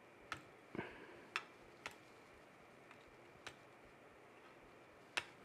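Tin snips clipping the excess wire leads of soldered components on a circuit board: about six faint, sharp snips, irregularly spaced.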